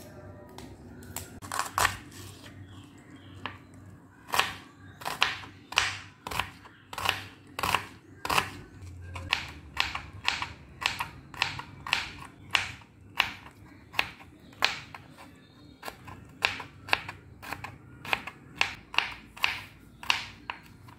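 Kitchen knife chopping garlic cloves on a wooden cutting board: a long series of sharp knocks of the blade on the board, about one to two a second, at an uneven pace.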